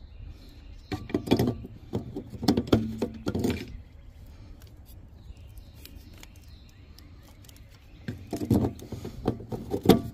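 Handling noise from seating a headlight bulb in a plastic headlight housing: a cluster of clicks and knocks about a second in, lasting a couple of seconds, and a second cluster about eight seconds in.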